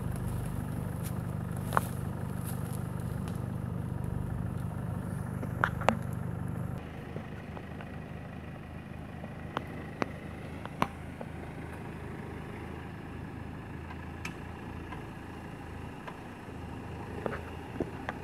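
Land Rover Discovery off-roaders' engines running at low revs while crawling over steep, rough forest ground, with scattered sharp snaps and knocks. About seven seconds in, the sound cuts to a second, quieter engine with more sharp knocks.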